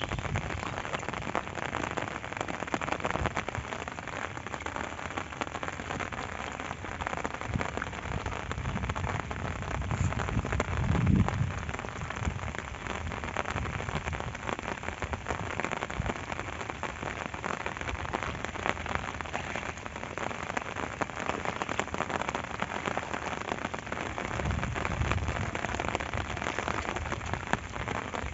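Steady rain falling in a dense patter, with a brief low rumble about eleven seconds in and another near the end.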